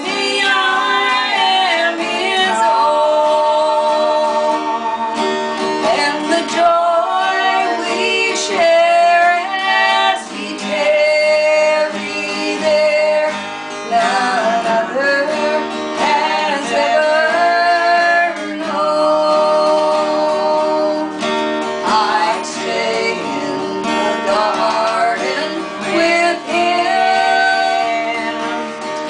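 Two women singing a hymn in long, held phrases, accompanied by a strummed acoustic guitar.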